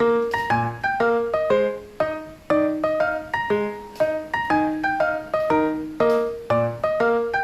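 Background music: a piano melody of struck notes, each ringing and fading, several a second.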